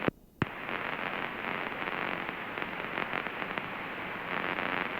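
Steady crackling static hiss on the cockpit radio and intercom audio between transmissions, with a brief drop-out and a sharp click just after the start.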